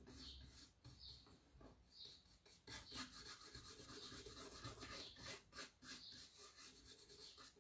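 Faint, repeated strokes of a small, fairly stiff paintbrush rubbing liquid asphalt patina over a box, coming thicker from about three seconds in.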